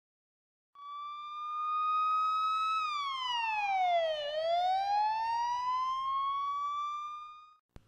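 Police siren wail: the pitch starts about a second in, holds high, sweeps down and climbs back up, and cuts off just before the end.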